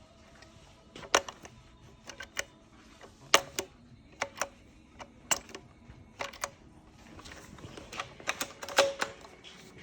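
Snow Wolf Mauser K98 airsoft rifle being test-fired: a series of sharp, irregularly spaced clicks and clacks from its bolt and firing action, loudest about a second and three and a half seconds in, with a quick run of clicks near the end.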